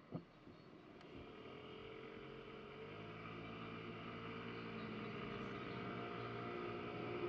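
A Honda Ruckus scooter's small engine pulling away from a stop. Its pitch and loudness climb gradually over the first few seconds and then hold steady as it cruises.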